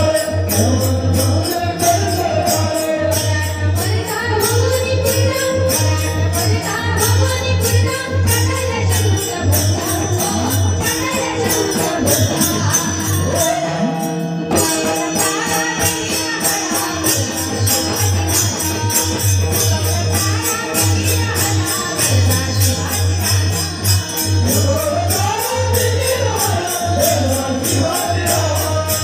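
Live devotional singing amplified through a large PA sound system: a voice over a fast, even beat of jingling percussion and a heavy bass pulse. The music briefly drops out about halfway through.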